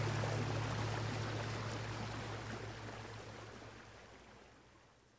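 Steady rushing of river water with a low hum underneath, fading out gradually to near silence.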